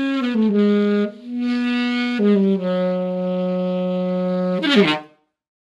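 Music: a single wind instrument playing a slow line of held notes, ending with a quick downward slide in pitch about five seconds in before it stops abruptly.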